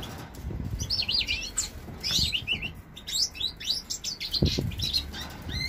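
Caged finches (canaries, common linnets and linnet-canary hybrids) chirping in many quick, high calls that overlap one another. A low knock comes about four and a half seconds in.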